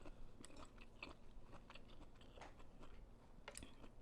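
Faint, close-up eating sounds: a person chewing pho noodles, with scattered small wet mouth clicks.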